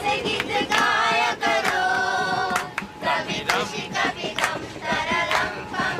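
A group of women singing together, clapping their hands along with the song, with sharp claps through the singing.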